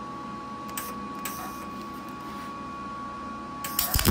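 A low steady hum with a thin high tone. Near the end a wire-feed (MIG) welder strikes its arc and starts a loud, steady crackle. The welder is set for 12 gauge, 18 volts and 280 inches per minute wire speed, and the crackle is the sound of a weld running right at those settings.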